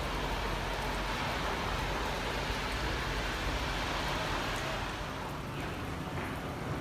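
Steady rushing background noise of distant trains and road traffic, easing slightly about five seconds in.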